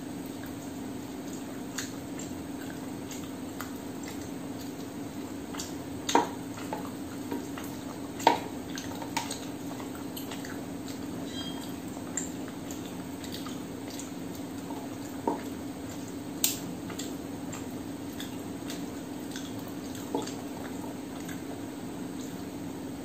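Hand-eating from a stainless steel plate: scattered clicks and taps of fingers and food against the steel, a few sharper ones about six, eight and sixteen seconds in, over a steady low hum.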